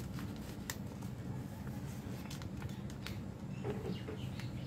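A sheet of paper being folded and creased by hand: scattered light crinkles and taps over a steady low background hum.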